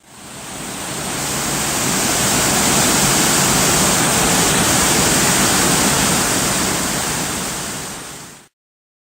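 Steady roar of a waterfall, an even rush of falling water. It fades in over the first second or so and cuts off abruptly shortly before the end.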